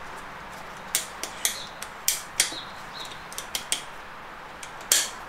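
Irregular sharp metallic clicks and clinks as a steel snap ring is worked into its groove on an automatic transaxle clutch hub, pressing down on the clutch plates and top plate. The loudest click comes near the end.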